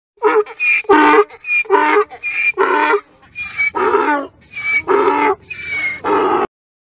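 An animal calling over and over, about a dozen short, loud calls at roughly two a second.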